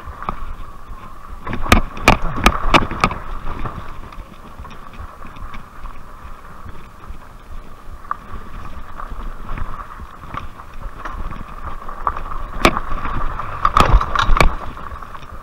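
RadRover fat-tire e-bike ridden over a rough, rocky dirt trail: a steady hum and rumble, with wind on the microphone. Sharp rattling knocks come as the bike jolts over bumps, a cluster about two seconds in and another near the end.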